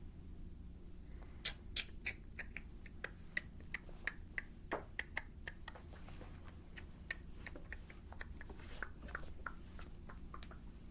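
Hand-twisted herb grinder crunching cannabis: irregular sharp clicks and crackles, a few a second, over a low steady hum.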